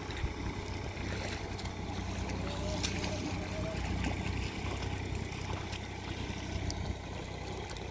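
Wind rumbling on the microphone over a flooded paddy field, with faint splashes and squelches of hands pushing rice seedlings into the wet mud.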